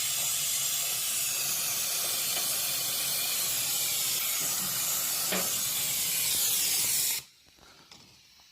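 Refrigerant gas hissing steadily as it is vented from an old air conditioner's system. It cuts off suddenly near the end.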